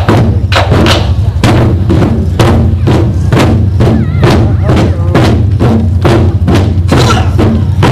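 Drums struck together in a steady beat, about two to three strikes a second, over loud recorded backing music.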